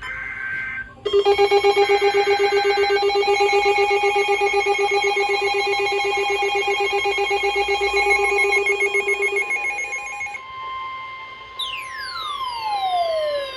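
NOAA Weather Radio warning alert tones. The tail of the SAME data header's two-tone burst comes first, then about eight seconds of a loud, rapidly pulsing alarm. The steady 1050 Hz warning alarm tone follows, joined about two seconds before the end by a tone sweeping sharply downward.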